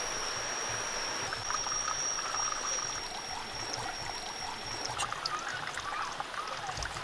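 Water running or trickling steadily, with a single high, steady whine above it that stops about five seconds in.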